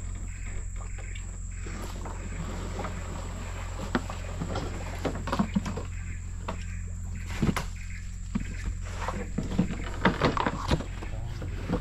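Scattered knocks, scrapes and rustles of leaves as a wire-mesh fish trap is grabbed from the side of a wooden boat, growing busier near the end. Under them run a steady low hum and a thin, steady high tone.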